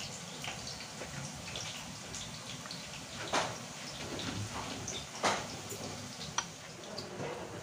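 Potato slices frying in hot oil, sizzling with scattered irregular crackles and a couple of louder pops about three and five seconds in.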